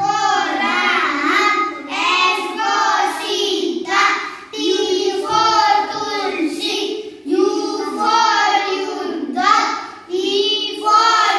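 A group of young children chanting together in a sing-song recitation of a devotional alphabet rhyme, in short phrases with brief pauses between them.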